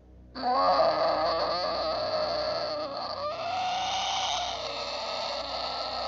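A long, shrill creature screech, a pterosaur call sound effect, starting about half a second in and lasting about six seconds. Its pitch wavers throughout and shifts about three seconds in.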